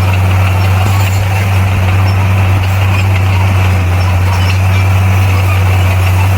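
Heavy diesel engine of earthmoving machinery running steadily, a constant low drone that holds without revving up or down.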